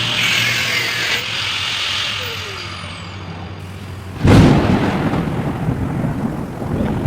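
A steady hiss, then a sudden loud boom about four seconds in that keeps rumbling.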